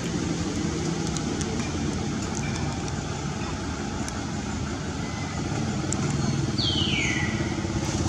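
Steady low engine rumble of a motor vehicle running, getting a little louder about six seconds in. Near the end a single short high call slides down in pitch.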